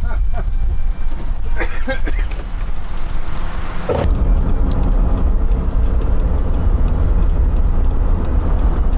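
A car running, a steady low rumble of engine and road noise. About four seconds in the rumble steps up suddenly and then holds steady.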